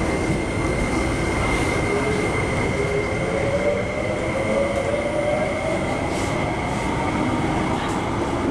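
Interior of an MTR Hyundai Rotem IKK-train accelerating away from a station, heard from inside the passenger car. A steady high whine from the traction equipment runs over the rumble of the wheels on the track. A lower motor tone climbs in pitch as the train picks up speed.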